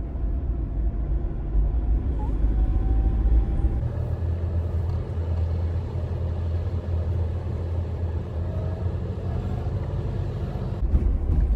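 Vehicle running on the road, heard from inside the cabin: a steady low engine and road rumble whose pitch shifts about four seconds in and shifts back near the end.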